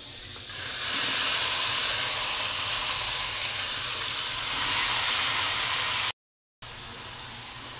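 Garlic and cubed pork sizzling in hot oil in a wok. The frying hiss jumps up about half a second in and holds, cuts out briefly about six seconds in, then comes back quieter.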